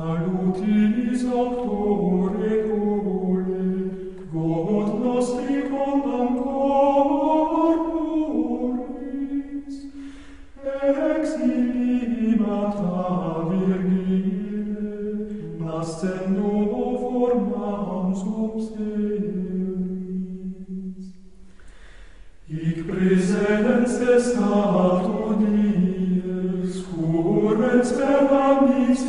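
Plainchant sung by a choir in unison: a slow single melody line in phrases a few seconds long, with short breaks between them.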